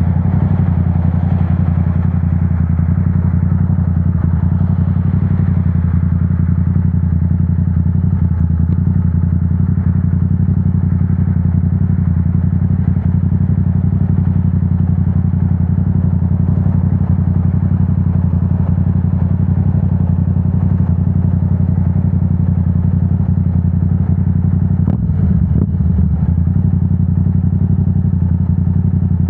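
Yamaha R7's 689 cc parallel-twin engine, breathing through a Yoshimura AT2 full exhaust, running at a steady engine speed. There is a brief wobble in engine pitch near the end.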